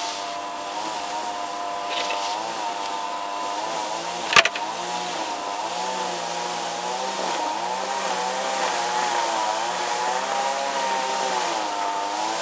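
A steady engine or motor drone, wavering slightly in pitch, with a single sharp knock about four seconds in.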